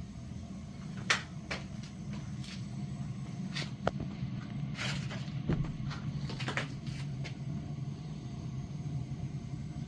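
Steady low mechanical hum with a scattered series of sharp clicks and knocks, the loudest a little after a second in and just before the fourth second.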